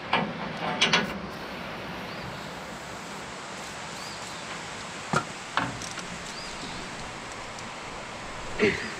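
Hand work on the corn picker's chain drive: a few short clanks and clatter near the start, two sharp clicks about five seconds in, and another knock near the end, over a steady low hiss.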